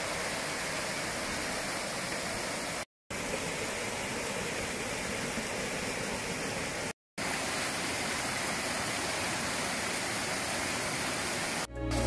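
Small mountain stream splashing over rocks in little cascades: a steady, even rushing of water. It cuts out for a moment twice, about 3 and 7 seconds in.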